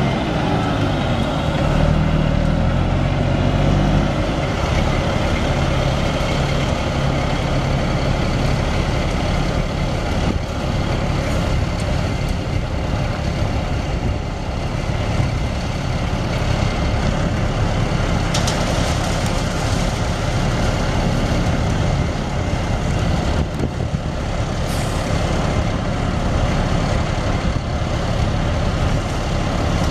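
Cummins LTA10 straight-six diesel of a 1990 Peterbilt 357 mixer truck running steadily.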